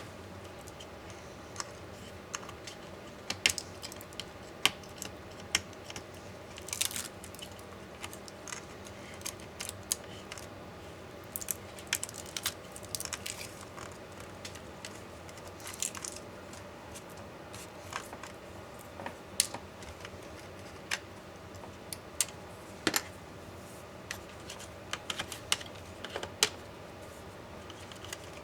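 Irregular light clicks, taps and brief scraping rustles of an MSI GT72VR laptop's plastic and metal parts and small tools being handled as the laptop is taken apart.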